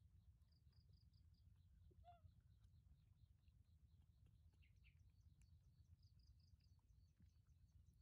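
Near silence: faint outdoor ambience with a low rumble and runs of faint, high, rapidly repeated chirps, plus one short faint squeak about two seconds in.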